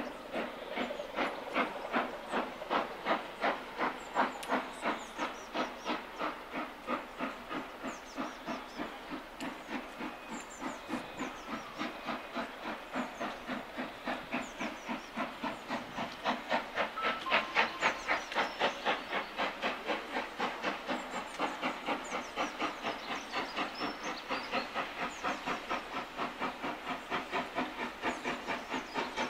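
Steam locomotive chuffing toward the listener under steam, a steady exhaust beat of about three a second with hissing steam. The beats get louder about halfway through.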